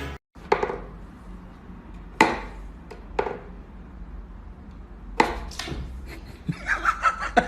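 A few sharp, separate knocks, then a quicker run of taps near the end.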